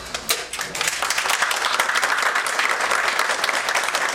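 A small group of people applauding: a few scattered claps, then steady clapping from about a second in.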